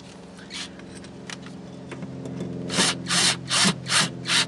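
Ratchet wrench tightening the bolts that hold a throttle box to the car frame: a few light clicks, then from a little past halfway a run of quick raspy ratcheting strokes, about two a second, over a steady low hum.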